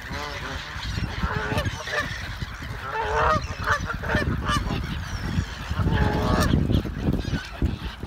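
A crowd of water birds calling loudly in repeated honking bursts, from black-headed gulls and Canada geese gathered in a flock on a lake, with a low rumble underneath.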